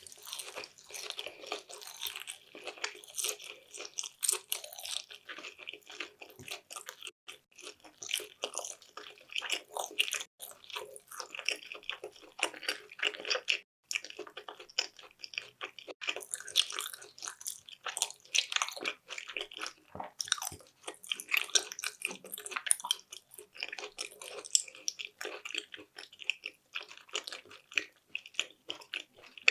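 Close-miked chewing of sushi: a dense run of wet, sticky mouth clicks and smacks, with a brief pause about halfway through.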